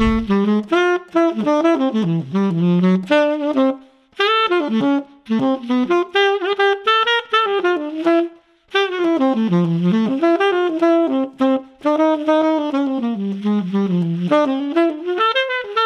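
Unaccompanied tenor saxophone on a Boston Sax Shop E-Series mouthpiece playing a jazz line. It comes in three phrases with short breaks about four and eight and a half seconds in.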